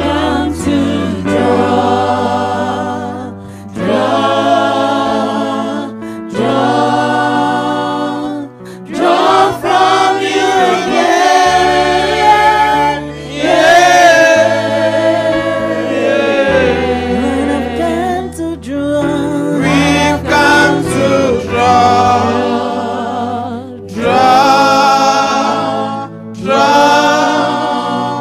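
A congregation sings a slow gospel worship song in phrases a few seconds long, led by a singer's voice through a microphone. Sustained low accompaniment notes underneath change every couple of seconds.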